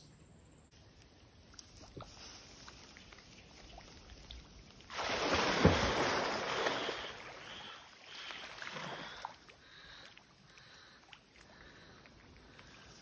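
An alligator splashing into a creek: a sudden heavy splash and churning water about five seconds in, lasting about two seconds, then a second smaller burst of splashing a few seconds later.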